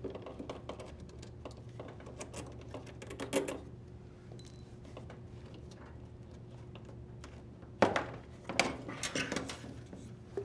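Small clicks and light knocks as a screwdriver loosens the metal screw clamp on a washer's drain bellow, then a louder stretch of rubbing and scraping about eight seconds in as the corrugated rubber bellow is worked off the plastic tub outlet. A low steady hum sits underneath.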